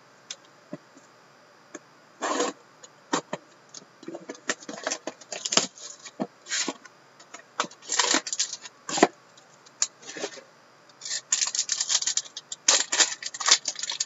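Clear plastic shrink wrap being torn off and crumpled from a sealed box of hockey cards, then the box and pack handled. The sound is irregular crinkling and crackling with sharp taps, busiest near the end.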